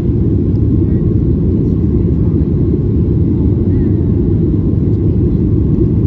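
Steady low rumble of a jet airliner's engines and rushing air, heard inside the cabin during the climb just after takeoff.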